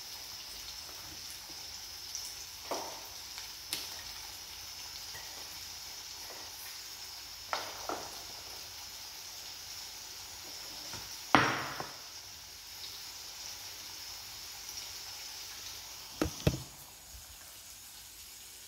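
Hot oil sizzling steadily as food fries in a pan on a gas stove, broken by a few sharp pops or knocks, the loudest about eleven seconds in.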